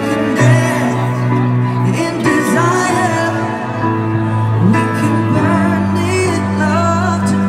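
Live concert music heard from within the crowd: a male singer at the microphone sings a wavering melody over sustained bass notes and held chords played through the PA.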